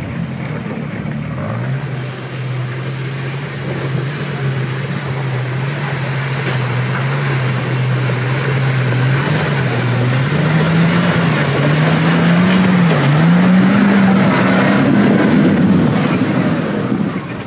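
Off-road 4x4's engine running steadily, then revving higher from about ten seconds in, its note rising and growing louder before easing off near the end.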